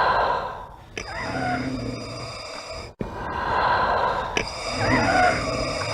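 Darth Vader's mechanical respirator breathing sound effect: two full breath cycles, each a hissing breath, a sharp click, then a second breath.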